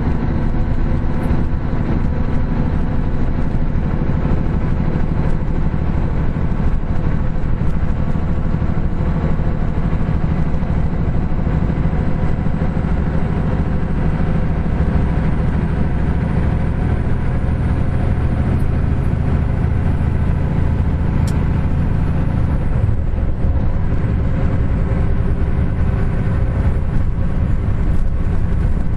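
Heavy diesel engine of a 2009 Kenworth T800 semi truck running steadily under way at highway speed, heard from inside the cab. About three-quarters of the way through, the engine note drops and changes.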